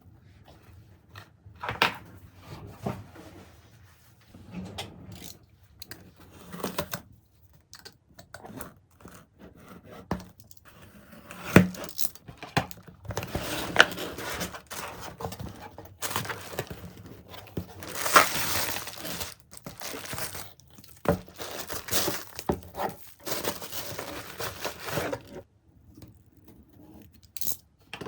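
Close handling noise: rustling and crinkling of paper or plastic, with scattered clicks and knocks. It is busiest through the middle and later part and dies down a few seconds before the end.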